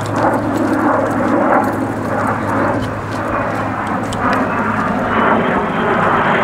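Aircraft flying overhead: a steady engine drone, with a faint rising whine in the second half.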